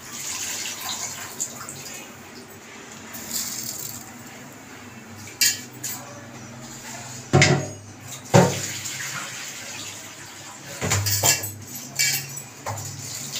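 Rice being poured into a large aluminium pot of water, with several sharp knocks of metal against the pot, the loudest about seven and eight seconds in.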